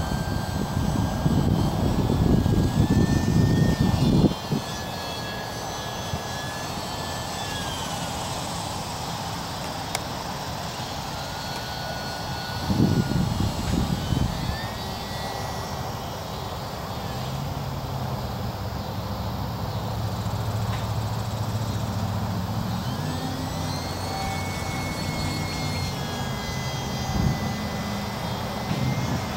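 E-flite UMX Yak 54 micro RC plane's electric motor and propeller whining overhead, the pitch rising and falling as the throttle changes. Wind buffets the microphone in the first few seconds and again about 13 seconds in, and a low steady hum comes in during the second half.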